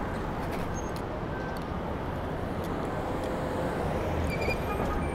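City street traffic: a steady wash of passing vehicles and road noise.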